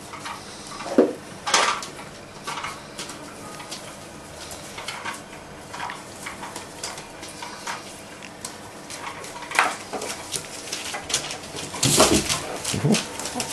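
Cocker spaniel puppies scrabbling about on newspaper over a tiled floor: scattered rustling, clicking and clattering, with a few short animal calls. It gets busier and louder about 12 seconds in.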